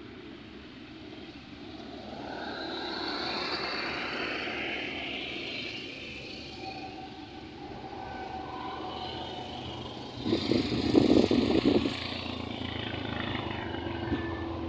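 Engine noise of something passing, swelling for a few seconds and then fading. A loud crackling rustle lasts under two seconds about ten seconds in.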